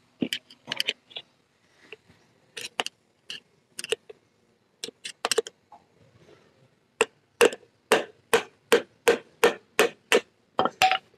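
Hammer blows punching holes through the old hydraulic oil filter of a Sonalika DI 35 tractor, done to bypass the filter and test whether its clogging is why the hydraulics won't lift. Scattered single strikes at first, then a steady run of about two to three blows a second from about seven seconds in.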